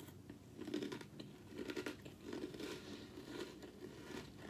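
A person chewing a mouthful of Funfetti corn-puff cereal in milk, in uneven bursts close to the microphone.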